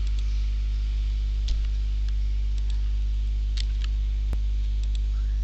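Steady low electrical mains hum, with a few faint clicks scattered through it.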